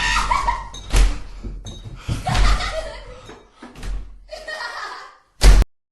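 Staged horror soundscape of a person laughing and vocalising in broken bursts, with a sharp knock about a second in. It ends in a short, very loud bang near the end.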